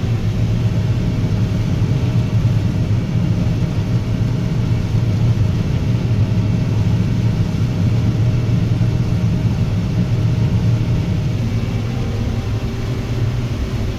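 Combine harvester running steadily while harvesting corn: a loud, even, low drone with a faint steady whine above it.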